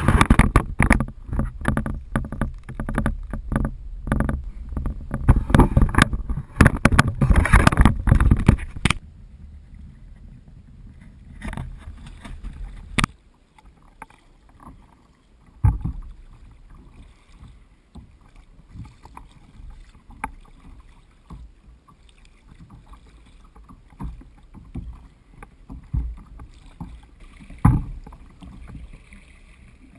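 Kayak under paddle, heard from a GoPro mounted on the boat: loud rumbling, crackling water and handling noise for about the first nine seconds, then quieter water with scattered sharp knocks, like paddle strokes and the paddle tapping the hull.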